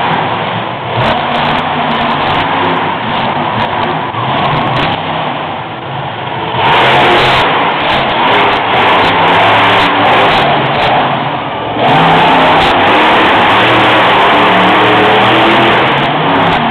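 Monster truck engine revving hard as the truck climbs over a row of junk cars. It grows louder twice, and in the later part it stays at full throttle.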